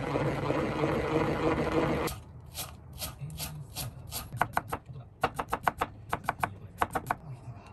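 Knife chopping on a cutting board in quick runs of taps. Before that, a steady rushing noise cuts off about two seconds in.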